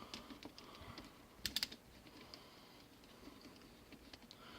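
Faint, scattered clicks and light taps of a hand tool working screws on a small weed eater engine, with a short cluster of sharper clicks about a second and a half in.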